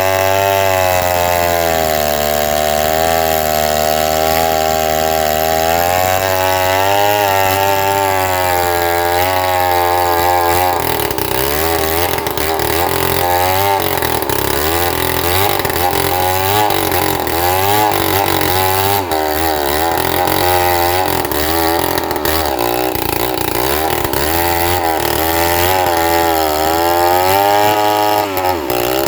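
Stihl MS 070 two-stroke chainsaw running under load, ripping lengthwise through a trembesi (rain tree) log. The engine pitch wavers only slightly at first, then from about ten seconds in swings up and down rapidly while it keeps cutting.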